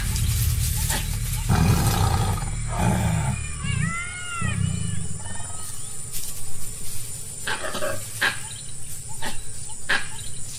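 Tiger growling and roaring in rough low bursts as it attacks a deer. A short high-pitched cry comes about four seconds in, and a few sharp cracks or thumps follow later.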